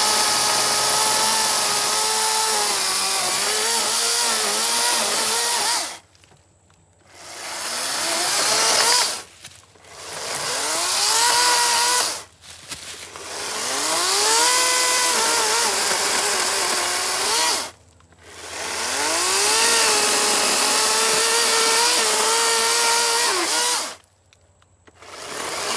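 Greenworks G-Max 16-inch battery electric chainsaw cutting up a dead maple branch: the motor whine rises in pitch as the trigger is pulled, dips and wavers as the chain bites the wood, and stops sharply. It runs in about six short bursts with brief pauses between them.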